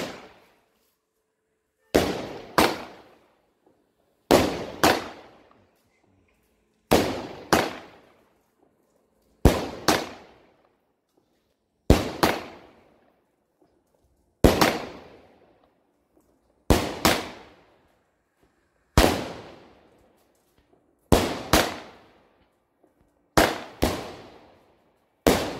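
Weco Aquila Bombette firework battery firing shot after shot, about every two and a half seconds. Each shot is a sharp launch bang followed about half a second later by the shell bursting overhead.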